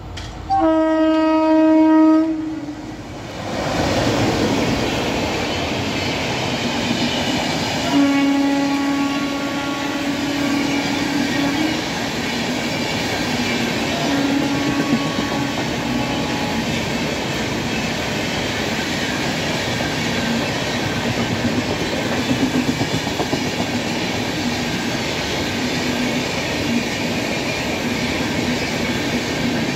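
Indian Railways electric locomotive sounding its horn in three blasts, a long one about half a second in, another around eight seconds in and a short one near fifteen seconds, as the train approaches at speed. Then the passenger coaches rush past with steady wheel-on-rail rumble and clickety-clack over the track joints.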